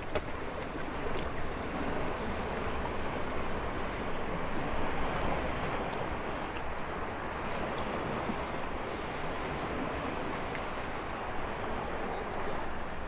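Steady rushing noise of wind and sea waves, swelling slightly midway.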